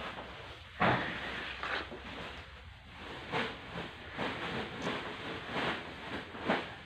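Irregular scuffs and knocks from water buffalo shifting about on a wet shed floor, with one louder knock about a second in.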